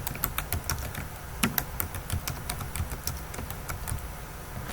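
Typing on a computer keyboard: uneven runs of quick key clicks with short gaps between them.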